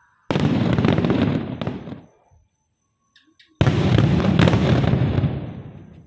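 Fireworks going off: two bouts of dense bangs and crackling, each about two seconds long, that start abruptly and fade away.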